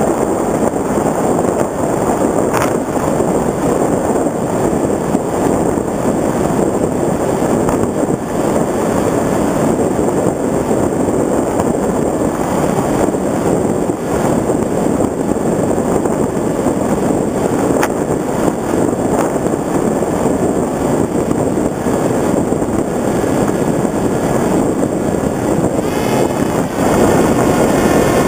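Electric motor and propeller of a small FPV Raptor RC foam plane, heard from its onboard camera during a low, fast pass, mixed with heavy wind rush on the microphone. The sound is a steady rush, growing a little louder with a faint whine near the end as the plane banks up.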